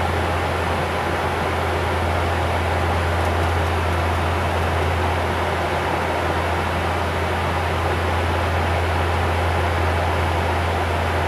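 Steady cockpit noise of a Bombardier Q400 turboprop in cruise: a constant low propeller drone under an even rush of airflow and air-conditioning noise.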